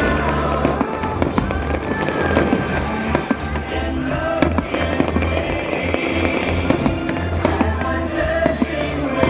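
Aerial fireworks bursting in an irregular run of bangs and crackles, over show music playing throughout.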